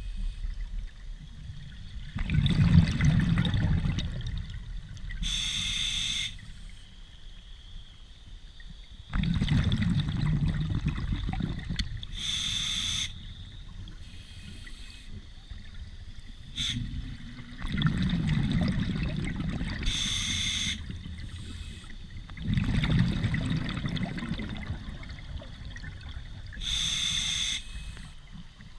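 Scuba breathing heard underwater: a short hissing inhale through the regulator, then a longer low burble of exhaled bubbles, in a slow cycle of about one breath every seven seconds.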